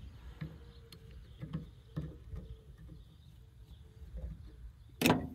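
Faint scattered taps and small scrapes of metal cable fittings being handled on a cast-aluminium line extender amplifier housing, with one sharp, loud click about five seconds in.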